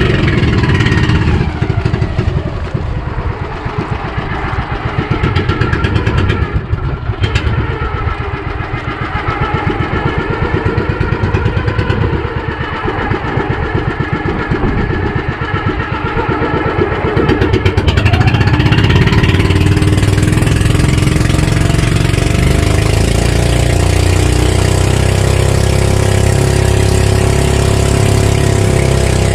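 Engine of a motorised outrigger fishing boat under way: it slows about a second in, runs at lower speed for a while, then speeds up again past the halfway mark and holds a steady, louder run.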